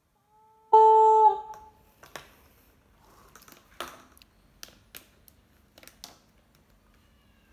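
A homemade PVC pipe horn blown through a mouthpiece sounds one short, loud note about a second in, lasting about half a second. It is followed by a string of light plastic clicks and taps as the pipe is handled and its ball valve turned.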